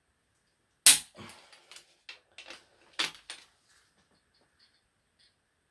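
Torque wrench clicking as connecting-rod bolts reach 88 Nm on the final tightening pass: two sharp clicks, about a second in and again about three seconds in, with lighter metal clicks after each and faint ticks near the end.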